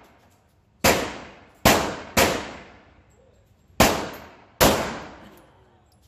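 Five pistol shots fired at an uneven pace, the second and third close together, each followed by a fading echo.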